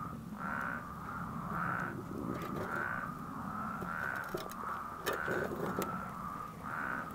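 A chorus of spadefoot toads calling: short nasal calls repeating about every half second to a second over a continuous drone of more calling toads, with a few faint clicks.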